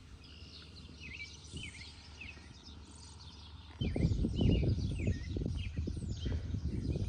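Birds chirping repeatedly with short, quick calls. About four seconds in, a louder, irregular low rumble sets in under them.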